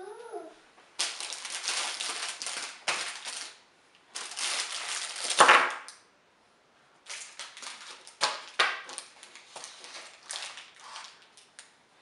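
Plastic candy wrappers crinkling and rustling as a toddler's hands rummage through a bowl of wrapped fun-size candy bars, in three bursts of crackling with a short pause in between.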